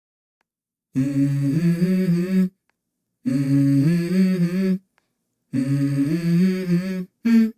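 A voice humming a slow melody of held, stepped notes in three phrases with short pauses between them, after about a second of silence; the intro of a background song.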